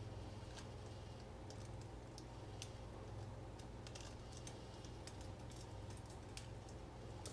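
Light, irregular clicking and ticking of the dryer element's coil wire and metal parts being handled, a few small clicks a second, over a steady low hum.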